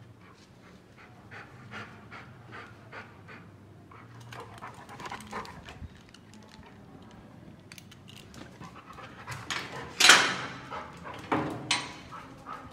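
A Labrador panting in quick, even breaths, about two or three a second. Near the end comes a loud sudden rattle, followed by two smaller ones, as the folding metal gate is opened.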